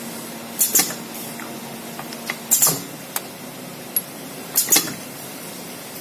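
Rotary bottle filling, plugging and capping machine cycling, with a sharp burst of hiss about every two seconds and light clicks in between as the turntable indexes and the nozzle rises and lowers. A low steady hum stops about halfway through.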